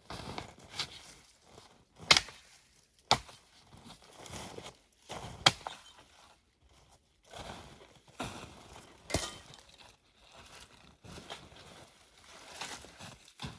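Branches and sticks being handled, with rustling and crunching and four sharp cracks as wood snaps or is knocked into place.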